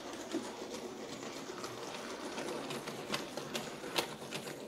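Hornby 00 gauge Ruston shunter model running, its small electric motor whirring steadily as it propels a rake of wagons over pointwork, with occasional clicks of wheels over rail joints and points.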